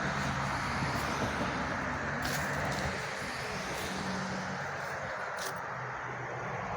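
An engine running steadily under a continuous rushing hiss.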